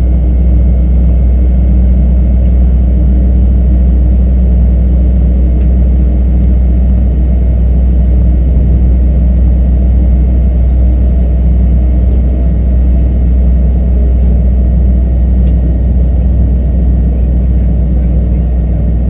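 Fokker 100's rear-mounted Rolls-Royce Tay 650-15 turbofan running steadily at low taxi thrust, heard from inside the cabin beside the engine: a loud, even low rumble with a faint steady whine above it.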